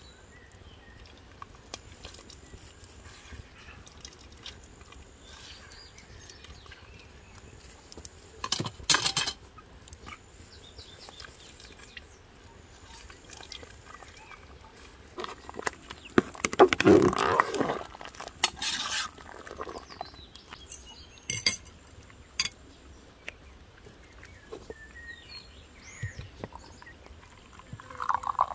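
Metal utensils clatter and scrape against a large steel pot of hot peach juice, in several short bouts with the loudest about halfway through, over faint repeated high chirps. Near the end, juice starts pouring into a glass.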